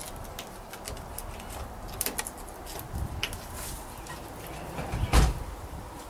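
Scattered light clicks and taps over a steady low rumble, with one heavier thump about five seconds in.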